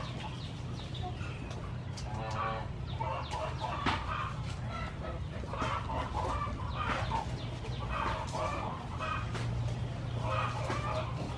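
Free-range chickens clucking and calling in short, scattered bursts over a steady low rumble.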